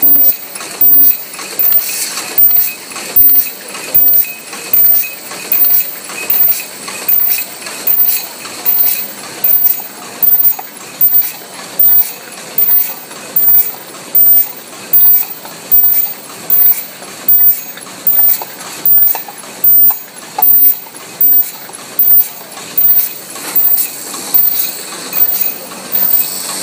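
MB-12/22 medium-speed paper cup forming machine running, its mechanism clacking in a steady, even cycle a little faster than once a second.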